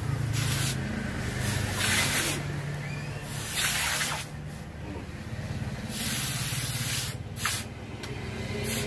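Hot steel machete blade hissing as it is quenched in a water trough to harden it, in about seven separate bursts of sizzling. A steady low hum runs underneath.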